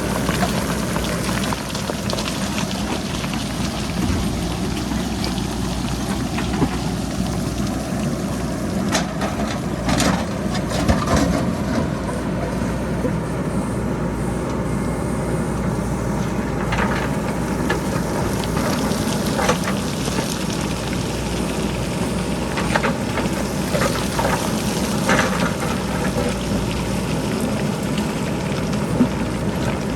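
JCB backhoe loader's diesel engine running steadily while boulders and pebbles clatter and knock down the hillside, with clusters of impacts about ten seconds in and again in the second half.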